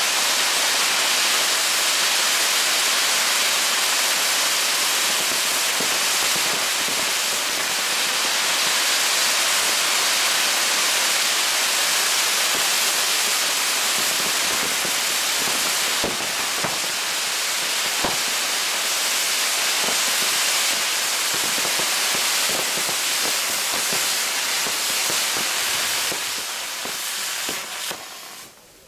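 Maltese ground-firework wheel (nar tal-art) burning, its ring of spark fountains giving a loud, steady hiss with a few sharp cracks. The hiss fades and cuts off near the end as the fountains burn out.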